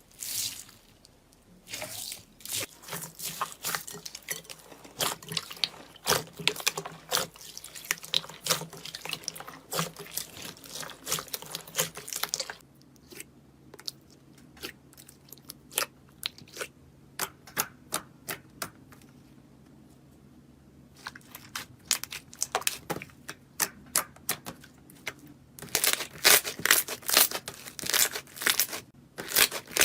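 Slime being squeezed and pressed by hand, giving irregular wet clicks and pops. The clicking thins out about halfway through, then turns into dense crackling near the end.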